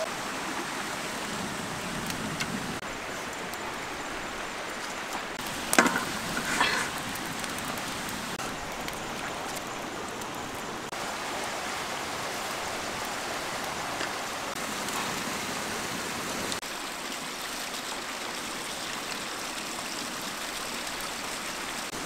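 Steady rushing water noise, with two short sharp sounds about six seconds in.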